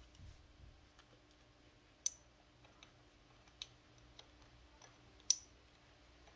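Sparse light clicks and taps of metal clutch parts being handled on a Honda GL1200 Gold Wing engine, with three sharper clicks about two, three and a half and five seconds in, the last the loudest.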